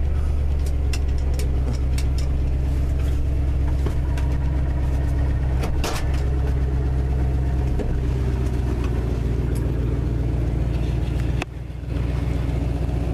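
1974 Ford F250 pickup's engine running steadily, heard from inside the cab, with scattered light clicks and a brief drop in level near the end.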